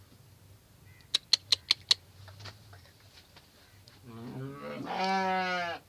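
Five quick sharp clicks about a second in, then near the end a long bleating call from a farm animal, wavering at first and then held at a steady pitch.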